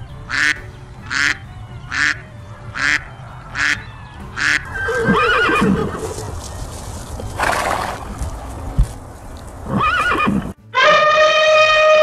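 Animal call sound effects in turn: a run of seven short goose-like honks about every 0.7 s, then a horse whinnying twice with a snort between, and from about 10.5 s a loud, long elephant trumpet. A low music bed runs underneath.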